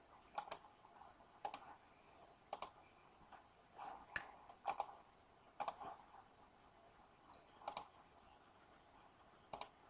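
Faint computer mouse clicks, about seven of them at irregular intervals, several sounding as a close pair of ticks.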